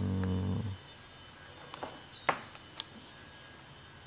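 Sharp plastic clicks and knocks as a new Royce reciprocating saw is turned over and handled, the loudest about two seconds in, after a brief low hum at the very start.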